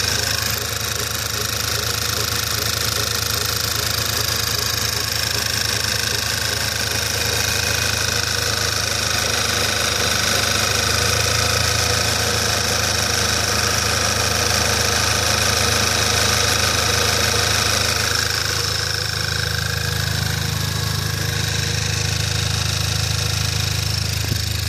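Škoda Octavia A5 engine idling, a steady running hum with several thin, steady high-pitched tones over it that ease off near the end. The owner is hunting an intermittent rubbing squeak, 'kyk-kyk-kyk', from the engine.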